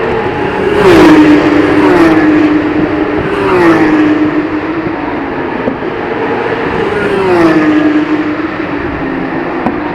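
Porsche 911 GT3 Cup (991) race cars' flat-six engines passing one after another at racing speed: about four loud pass-bys, each engine note dropping sharply in pitch as the car goes by, over a steady engine drone from cars further off.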